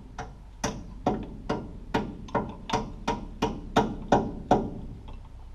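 Hammer striking a metal part, about a dozen evenly spaced blows at roughly two and a half a second, each ringing briefly; the blows stop about five seconds in.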